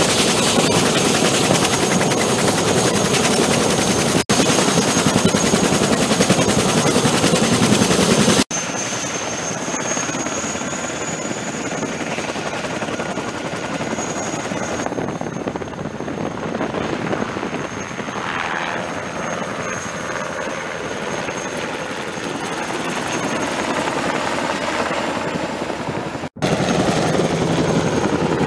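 Military helicopters' rotors and turbine engines running, with a steady high turbine whine over the rotor noise. The sound changes abruptly about 8 seconds in and again near the end, as it passes between a close-by CH-47JA Chinook with rotors turning, a UH-60JA Black Hawk on the ground, and a CH-47JA lifting off.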